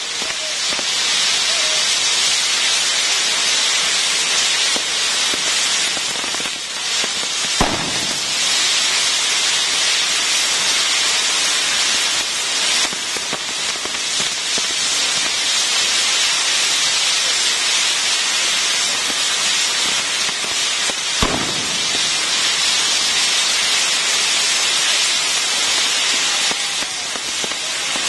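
Maltese ground fireworks, a metal frame of spinning fire wheels and fountains, burning with a steady, loud hiss. Two sharp bangs stand out, one about eight seconds in and another about twenty-one seconds in.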